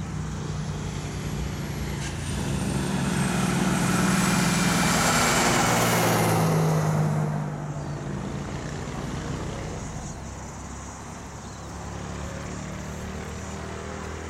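A heavy diesel vehicle, most likely a truck, passes out of sight of the picture. Its engine hum and tyre noise swell to a peak about four to seven seconds in and then fade. A faint high whine slides slowly down in pitch.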